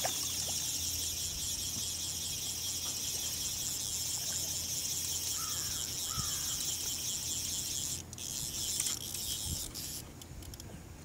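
Steady high-pitched buzzing of an insect chorus, which drops out about eight seconds in, returns briefly, then fades near the end. Two short chirps are heard midway.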